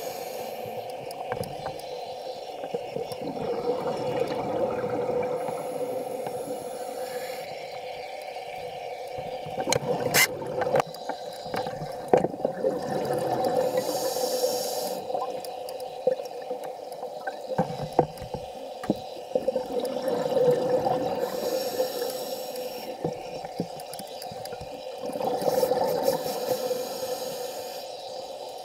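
Underwater sound picked up by a camera's microphone: rushing water noise that swells and fades every few seconds over a steady hum, with scattered sharp clicks and knocks.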